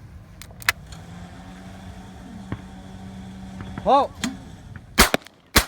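A shooter's short shout calling for a helice target, then two shotgun shots about half a second apart. A low steady hum runs underneath before the call.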